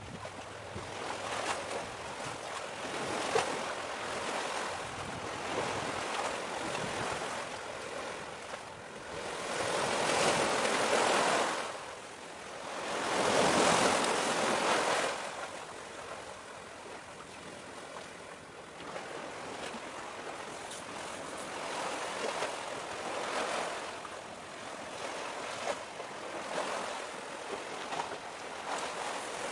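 Waves washing against the shore, a steady rush that swells and fades, with two louder surges about a third and halfway through.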